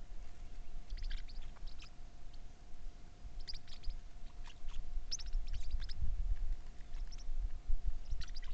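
Small birds chirping: quick clusters of short, high notes about every second or two, over a low rumble and a faint steady hum.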